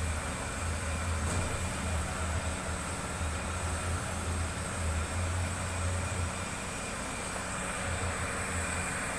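Aluminium pot of water with pumpkin and potato pieces boiling hard on a gas stove burner: a steady rushing noise of flame and bubbling water with a low, uneven rumble.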